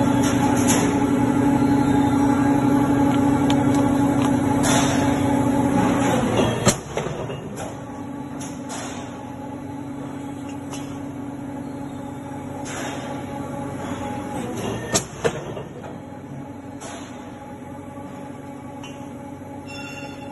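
Factory machinery running with a steady hum of several tones. The hum is loud at first, then drops to a lower level after a clunk about six seconds in. A couple of sharp metallic knocks come about three quarters of the way through.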